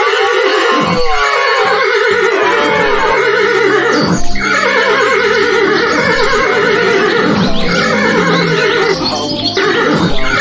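Horse whinnies, one after another, each with a quavering pitch, over background music.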